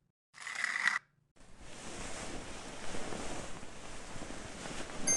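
Slime being stirred and mixed by hand to blend in turquoise eyeshadow powder, a continuous wet rustling.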